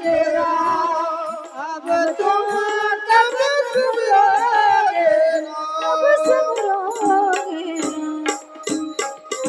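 Devotional Ram bhajan: a woman singing with drum and hand-cymbal accompaniment. After about five seconds the singing gives way to held notes and a run of drum and cymbal strokes that come faster toward the end.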